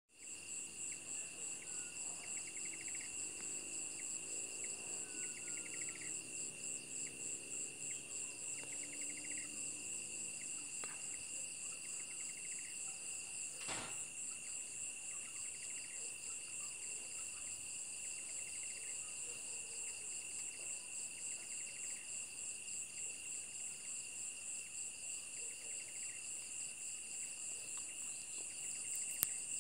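Chorus of crickets trilling steadily in several high pitches, with a softer chirping insect call repeating every few seconds.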